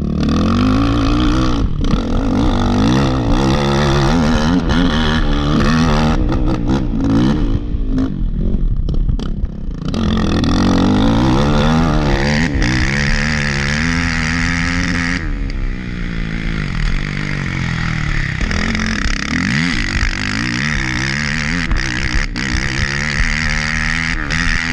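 Off-road dirt bike engine revving up and down over and over as the rider accelerates, backs off and shifts, with scattered sharp knocks and clatter.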